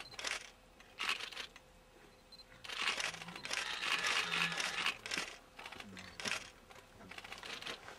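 Rustling and crinkling close to the microphone in irregular bursts, the longest starting about three seconds in and lasting about two seconds.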